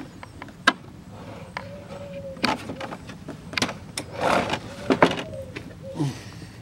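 Plastic engine undertray being unclipped and pulled down from under a Nissan 350Z's front bumper. Several sharp clicks as the fasteners let go, and a rustling plastic scrape about four seconds in as the tray comes away.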